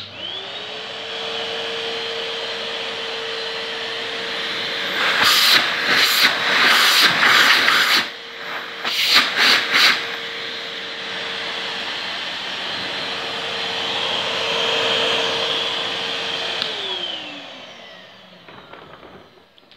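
Numatic Henry Micro HVR200M vacuum cleaner switched on: its motor spins up quickly to a steady whine and runs. Twice in the middle, for about three seconds and then about one second, a loud rush of air comes from the hose inlet as a hand is held at it to feel the suction. Near the end it is switched off and the motor winds down with a falling whine.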